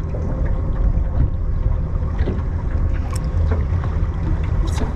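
Boat motor idling in a steady low rumble, with wind on the microphone.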